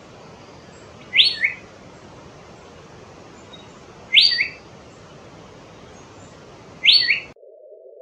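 Asian fairy-bluebird calling three times, about three seconds apart. Each call is a liquid two-note 'glue-it', the second note shorter and lower than the first, over a steady hiss of background.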